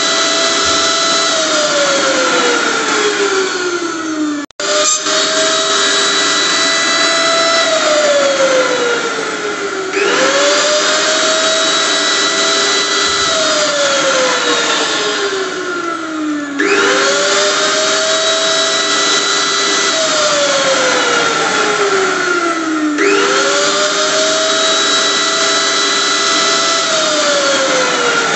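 Electric kitchen blender motor running loud, its whine rising quickly, holding, then sinking steadily in pitch before jumping back up, in a cycle that repeats about every six seconds. There is a brief break in the sound a few seconds in.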